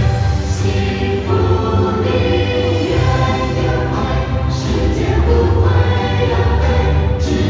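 Stage-musical song: several voices singing together over musical accompaniment with a strong, steady bass.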